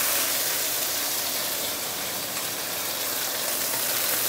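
Hot oil sizzling steadily around two small whole snapper frying in a wok.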